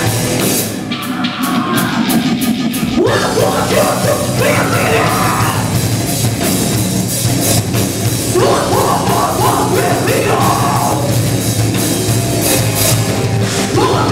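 Heavy metal band playing live, with drums and guitars and a vocalist whose voice sweeps up in pitch about three seconds and about eight seconds in.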